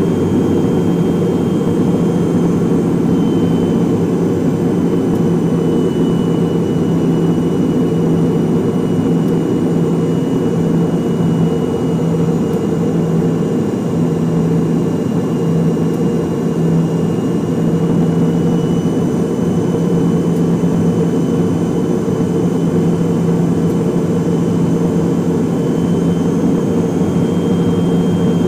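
MD-83's rear-mounted Pratt & Whitney JT8D turbofan running at approach power, heard from inside the cabin beside the engine: a steady hum with a thin high whine that drifts slightly in pitch.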